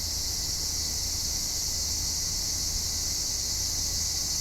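Steady chorus of insects: an unbroken, high-pitched drone.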